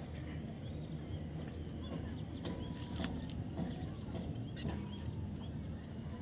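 Steady low outdoor rumble, like distant traffic, with a few faint bird chirps and brief clicks over it.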